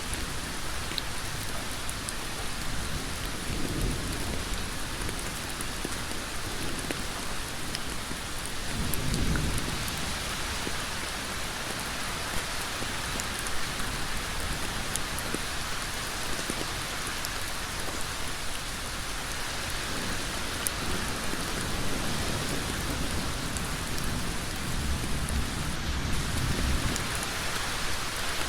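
Heavy rain falling on a road, a dense, even hiss of drops at a steady level. A few brief low rumbles swell up and die away, about 4 and 9 seconds in and again near the end.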